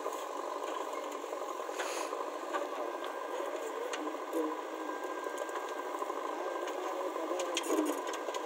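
JCB backhoe loader's diesel engine running with a steady mechanical rattle as it digs and lifts soil, with a few short knocks near the end.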